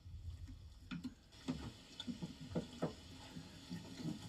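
Hands rubbing and pressing wet masala marinade into whole goat carcasses: faint, irregular wet squishes and small clicks.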